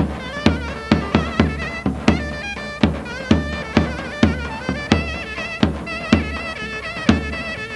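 Halay dance music of the davul-and-zurna kind: a shrill, wavering reed-pipe melody over a steady bass-drum beat of about two strokes a second.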